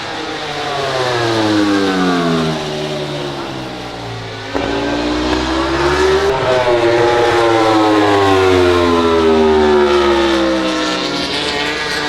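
MotoGP racing motorcycles' 1000 cc four-cylinder engines going past at speed. One bike's note drops away in pitch over the first few seconds, then a second comes in suddenly and loudly about four and a half seconds in, its pitch climbing and then falling as it passes.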